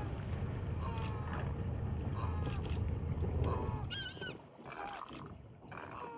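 A bird giving a series of short honking calls, about one a second, over the low rumble of a motor that drops away about four seconds in.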